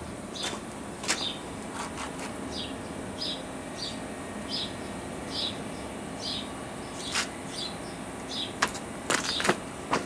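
Outdoor background: a steady hum under a short high chirp that repeats about every two-thirds of a second, with a few sharp clicks, most of them near the end.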